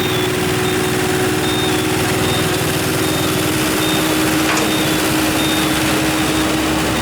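Dump truck engine running steadily with a constant hum while the truck tips its load of soil.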